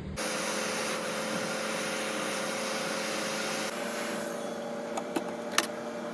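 Steady electric fan blowing with a faint hum, its hiss shifting slightly partway through, and a few small sharp clicks near the end.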